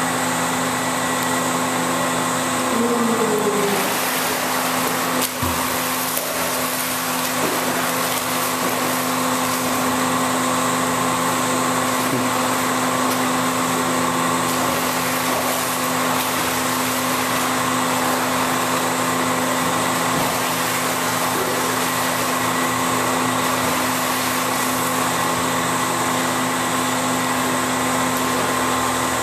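Steady, loud mechanical drone of an indoor pool room's machinery, an even rushing noise with several steady humming tones that does not change.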